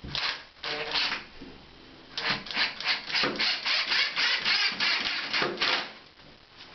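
Cordless drill driving a screw to fix a roller blind end bracket into the window frame. It runs in two short bursts, then in a quick series of short pulses, about five a second, from about two seconds in until near the end.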